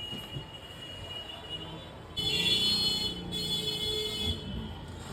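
High-pitched electronic tones: one thin steady tone for about two seconds, then a louder, fuller tone sounded twice in a row.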